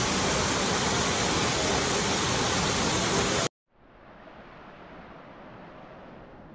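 Steady rush of falling water, like a waterfall or cascade, that cuts off abruptly about three and a half seconds in and gives way to a much quieter, duller hiss.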